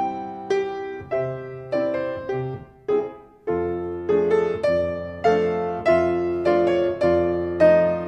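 Piano playing ballet class accompaniment: chords struck on a steady beat, each dying away before the next, with a brief pause about three seconds in before the playing picks up again.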